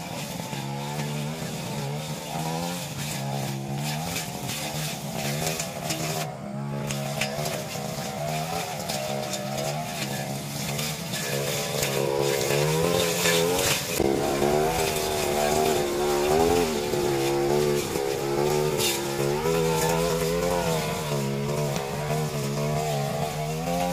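Backpack brush cutter engine running under load as it cuts weeds and grass, its pitch rising and falling over and over as the throttle is worked.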